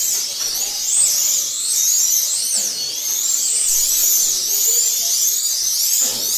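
Several Eurosport 1/32 slot cars racing, their small electric motors whining high, the pitch climbing and falling over and over as the cars accelerate and brake around the track.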